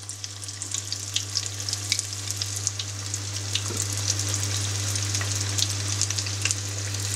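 Breaded chicken nuggets deep-frying in oil heated to about 200 °C: a steady sizzle thick with sharp popping crackles, over a steady low hum.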